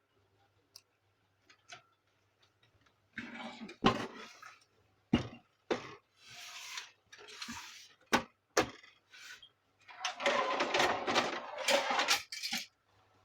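Plastic printer parts being handled and fitted during reassembly: a run of sharp clicks and knocks with scraping and rubbing between them, the longest stretch of rubbing near the end.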